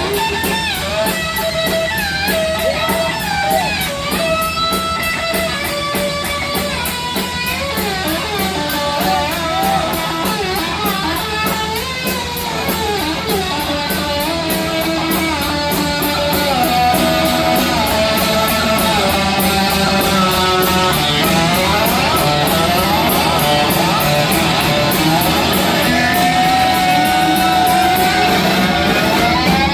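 Heavy metal band playing live: a distorted electric guitar lead line with pitch bends and slides over bass and rapid drumming. Near the end the guitar slides steadily upward in pitch.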